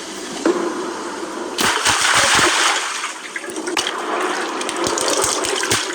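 Rushing, splashing water, surging loudest from about one and a half to three seconds in, with scattered clicks and splashes afterwards.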